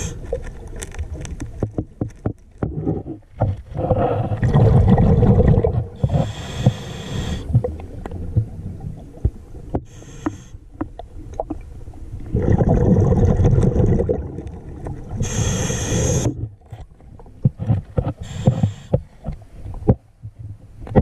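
Scuba diver breathing through a regulator underwater: hissing inhalations alternate with two long, rumbling streams of exhaled bubbles. Sharp little clicks and knocks come in between.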